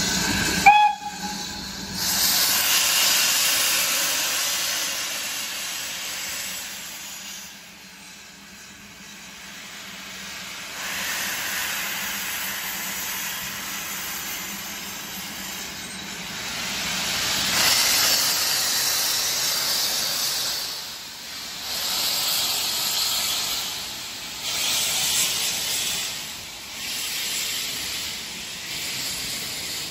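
BR Standard Class 9F steam locomotive 92214 moving off slowly, its open cylinder drain cocks venting steam in loud hissing surges. A brief whistle sounds about a second in.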